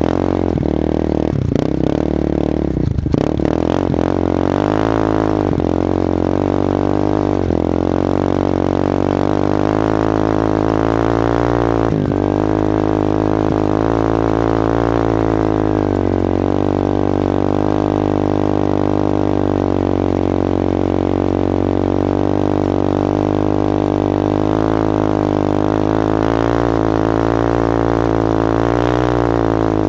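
Yamaha Warrior 350 ATV's single-cylinder four-stroke engine running under load as it tows a snowboarder, the revs rising and falling with the throttle. A few knocks and rattles in the first three seconds.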